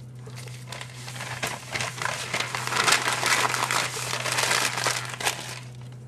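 Newspaper flyer sheets being folded and crumpled up by hand around vegetable scraps: a crinkling paper rustle with many small crackles, building to its loudest in the middle.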